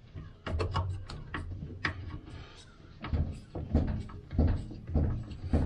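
Irregular plastic clicks and knocks of a new carbon brush being pushed into its holder on a Daewoo DWD-M1029A washing machine's drum motor and its wire fitted to the terminal, with a run of dull knocks in the second half.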